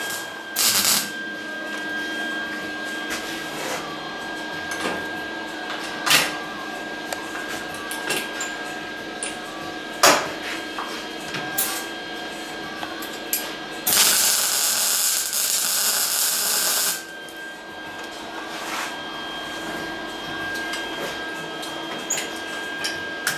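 110-volt Lincoln Electric MIG welder laying welds along a door-skin support panel: a short weld burst about a second in, a few brief sharp ticks, then a steady weld of about three seconds starting about 14 seconds in.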